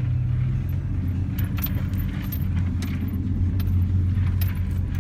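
Vehicle engine running steadily, heard from inside the cab, with light metallic jingling and small clicks over it.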